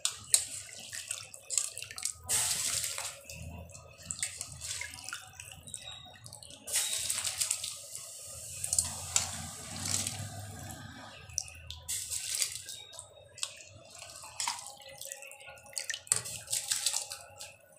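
Soaked basmati rice poured into a pot of boiling water in several goes, each pour splashing briefly over the steady bubbling of the boil.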